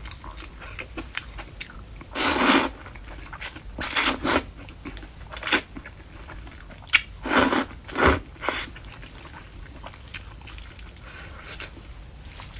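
A person eating noodles with crisp bamboo shoot dice: about seven short, noisy slurping and chewing sounds with pauses between them.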